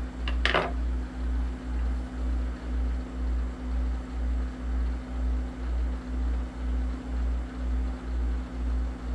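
A low machine hum that throbs steadily about twice a second, with a short tap about half a second in.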